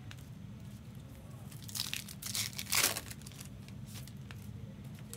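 Trading-card pack wrappers crinkling and tearing as packs are opened, in a few short bursts, the loudest a little under three seconds in.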